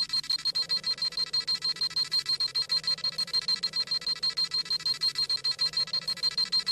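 Dragon Ball Z scouter sound effect, the rapid high-pitched electronic beeping of the scouter scanning a power level, at about eight beeps a second.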